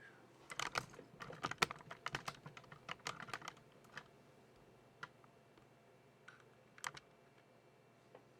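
A quick run of small clicks and taps, then single clicks every second or so: equipment being handled and set up at close range.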